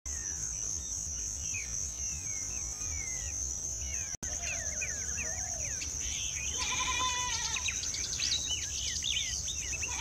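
Outdoor wild soundscape: a steady high insect buzz with many birds chirping and whistling in short gliding notes, busier after about four seconds. A louder wavering call comes about seven seconds in. The sound breaks off for an instant about four seconds in.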